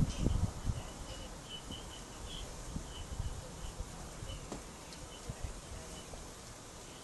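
Faint high chirps repeating irregularly, about two a second, from a small animal, over a low outdoor rumble; a few dull thumps in the first second.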